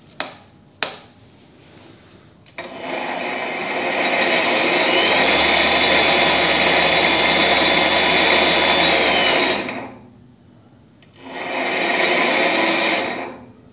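Weisan WM210V variable-speed mini lathe on its first test run: two clicks of the switch, then the spindle motor and chuck spin up and run steadily with a thin whine. It stops at about ten seconds and runs again briefly near the end.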